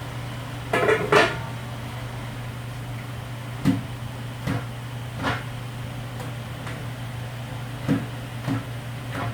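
Scattered knocks and light clatters, a quick cluster of them about a second in and then single ones every second or so, over a steady low hum.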